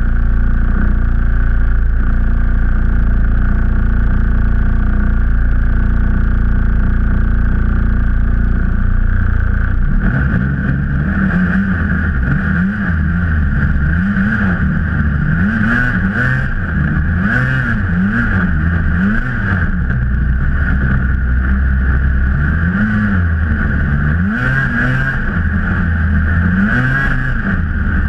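Polaris Edge XC SP snowmobile's two-stroke twin, big-bored to 860cc with an SLP single exhaust, running at a steady speed, then from about ten seconds in revving up and falling back again and again as the throttle is worked.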